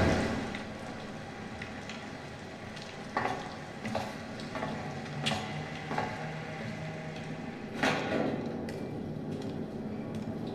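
Underwater swimming-pool ambience: a steady, crackling hiss of water with a few soft knocks scattered through it.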